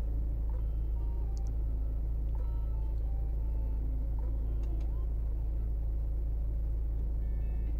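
Steady low hum or rumble, with faint short held tones that step up and down in pitch over it, like soft background music.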